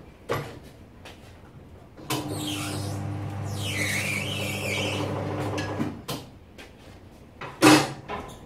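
Motorcycle tire bead being levered off a spoked rim with a tire iron: a steady rubbing groan of rubber dragging over the rim edge for about four seconds, then a single loud knock near the end.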